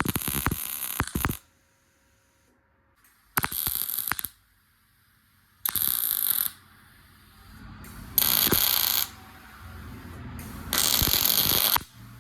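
Welder laying a series of short tack welds on the sheet-metal cowl panel: five bursts of crackling hiss, each about a second long, with pauses between them.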